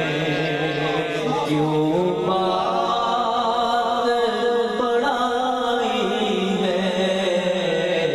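A man singing an Urdu devotional naat into a microphone in long, melismatic held notes that glide between pitches, over a steady low drone that changes pitch a couple of times.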